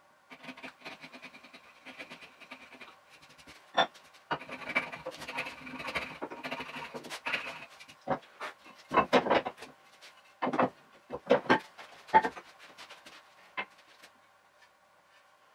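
Hand woodworking at a bench, sped up four times: quick scratchy rasping on wood through the middle, then a cluster of sharp wooden knocks as boards are handled in the second half.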